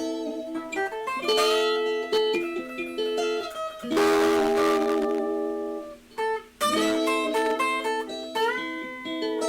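Guitar playing a Spanish-style blues in A minor: plucked single notes and short runs, with a strummed chord about four seconds in and a brief pause about six seconds in.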